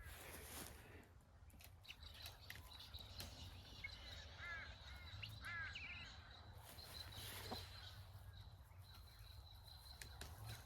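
Near silence outdoors with faint bird calls: a few short, harsh calls about four to six seconds in, over a thin steady high tone.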